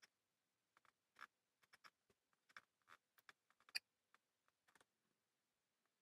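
Near silence with a few faint clicks and taps as a laptop RAM module is handled and pressed into its memory slot, one slightly louder click near four seconds in.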